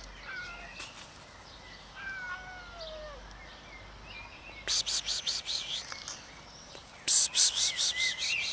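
Birds calling: thin whistled notes gliding up and down, then two bursts of rapid chattering, about ten notes a second. The first burst comes about halfway in, the second near the end.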